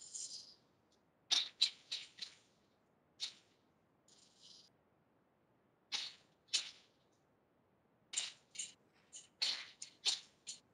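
Karate kata movement sounds: short, sharp, hissy snaps of the gi and quick movements with each strike and kick, coming in clusters of one to five every second or two, with a couple of softer breathy hisses, heard through a video call.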